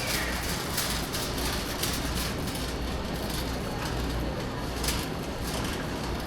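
Shopping cart rolling over a hard store floor, with a steady low rumble and a running clatter of small clicks and rattles from its wheels and wire basket.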